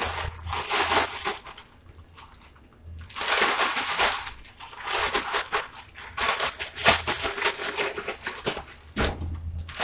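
A plastic bag crinkling as it is shaken with chicken wings and seasoned flour inside to coat them. The shaking comes in runs: once at the start, again about three seconds in, and then almost without a break from about five seconds until just before the end.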